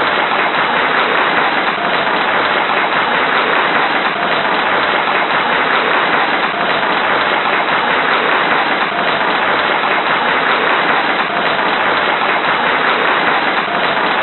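Large crowd applauding: dense, continuous clapping that holds steady without swelling or dying away.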